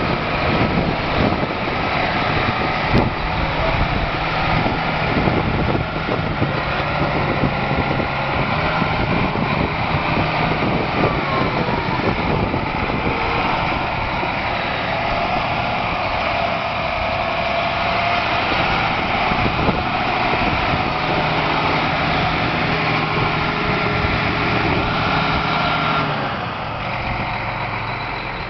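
John Deere 8260R tractor's six-cylinder diesel engine running steadily as the tractor moves about on gravel; the sound gets somewhat quieter near the end.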